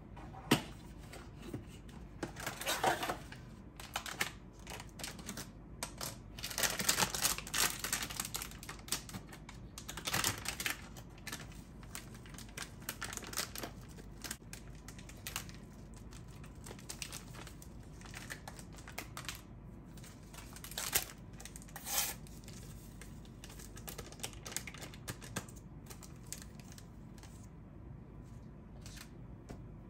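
Kitchen handling sounds: a plastic package crinkling and rustling in bursts, with scattered light clicks and taps around a stainless steel mixing bowl and whisk.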